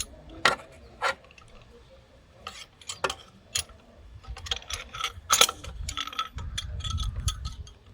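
Irregular metallic clicks and clinks of a hand tool working on bolts in a car's engine bay as they are loosened, with a low rumble near the end.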